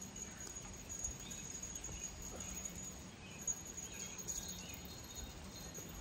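Faint outdoor ambience: insects trill on one steady high pitch, with scattered faint bird chirps. A single short knock comes about three and a half seconds in.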